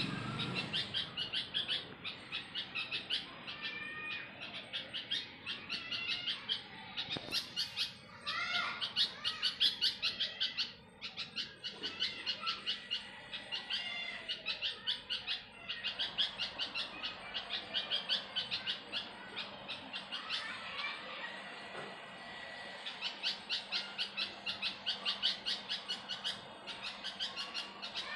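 Birds chirping in fast runs of high repeated notes, pulsing a few times a second with short breaks between runs.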